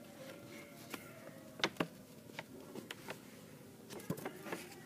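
A sheet of paper being handled and pulled away: faint, scattered crinkles and light taps, a little louder between one and two seconds in.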